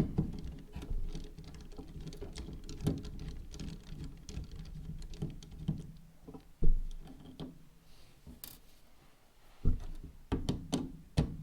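Small screws being undone from a plastic LED keychain with a small screwdriver bit: scattered light clicks and scrapes of the bit and the handled parts, with a louder knock about seven seconds in.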